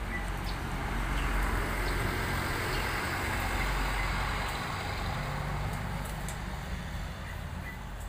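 A road vehicle passing by: engine rumble and tyre hiss that swell over the first few seconds and then fade away.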